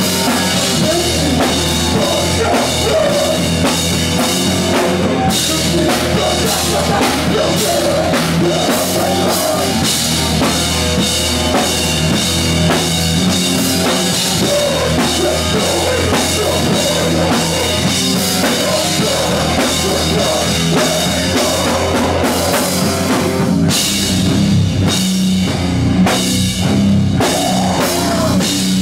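Live rock band playing loudly, with the drum kit to the fore: cymbals and snare struck steadily throughout.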